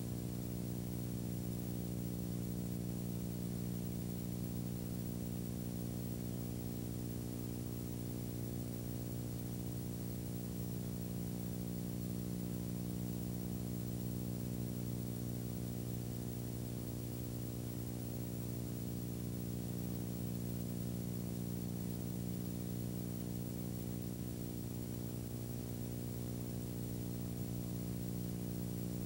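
Steady low electrical hum with a buzz of overtones and faint hiss, unchanging throughout, with no other sound.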